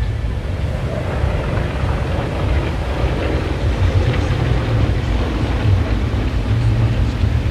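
Wind buffeting the microphone, a steady low rumble over open-air ambience.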